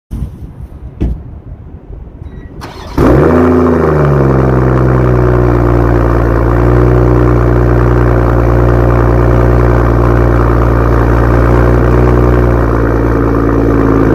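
2021 BMW M340i M Performance Edition's turbocharged inline-six cold-starting through its exhaust. After a click about a second in, the engine fires about three seconds in with a loud rev flare that rises and falls, then settles into a steady cold idle.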